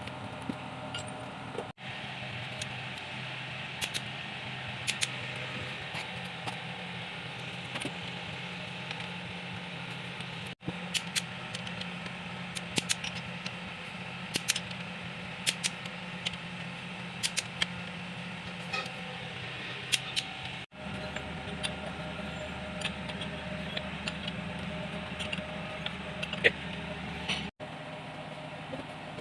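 Scattered light clinks and knocks of metal tools and parts being handled, over a steady mechanical hum. The sound drops out briefly about four times.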